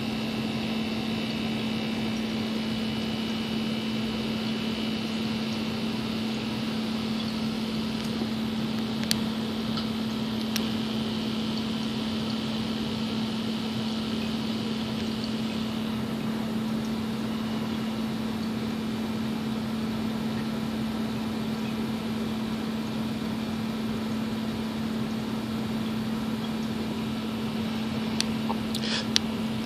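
Steady electrical hum of reef aquarium equipment such as pumps, with a low drone and a few faint ticks.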